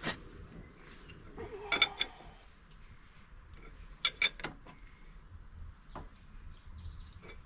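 Metal hand tools clinking against motorcycle engine parts: a few sharp clinks with a short ring, in pairs about two and four seconds in and singly later. Faint bird chirps near the end.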